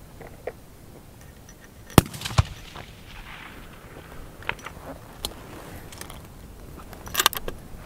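Palma target rifle fired once about two seconds in: one sharp, loud crack, then a second, fainter crack under half a second later. A quick cluster of sharp clicks comes near the end.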